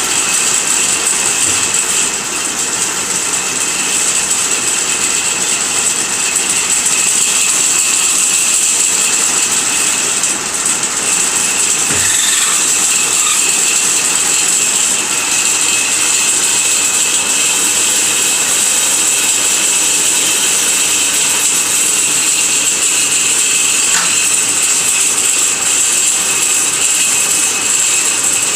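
Automatic lathe running steadily, with a constant high-pitched whine over its machining noise and a single light click about halfway through.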